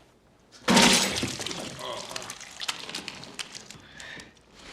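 Glass shattering with a sudden loud crash about a second in, followed by pieces clinking and tinkling as they fall and settle.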